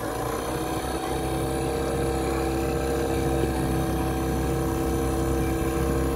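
Outboard motor on a small open boat speeding up over the first second or so, then running steadily at cruising speed.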